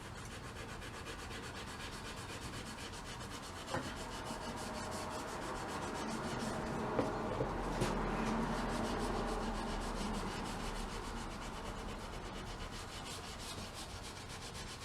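Scotch-Brite pad scrubbed back and forth over a pry bar's handle with degreaser and Pink Stuff cleaning paste, working old paint off: a steady, rapid rubbing that grows louder in the middle, with a few light knocks.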